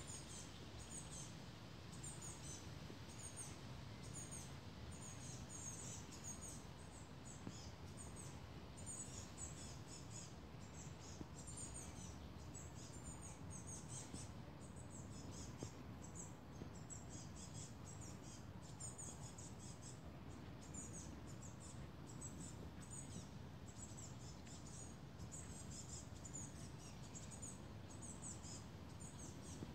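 Faint, rapid high-pitched chirps repeating in clusters every second or so, over a steady low background hum.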